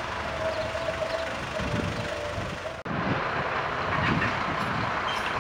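Steady passing road-traffic noise, with a faint steady tone in the first part. The sound cuts off abruptly about three seconds in and picks up again as similar traffic rumble.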